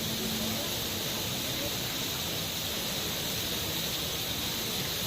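Steady, even hissing noise with no breaks.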